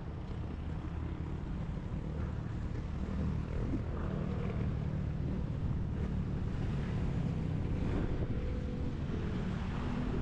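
A vehicle engine running with a steady low rumble, growing slightly louder over the few seconds.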